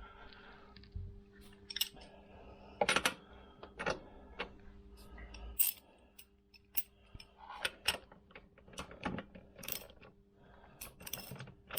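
Metal hand tools clinking and knocking as a socket and spanner are fitted and used to tighten a spark plug in a Vespa PX cylinder head: a string of sharp, irregular metallic clicks, over a faint steady hum.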